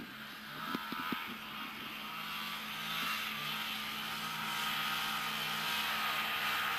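Snowmobile engine running steadily and getting louder as it approaches, with a few light knocks about a second in.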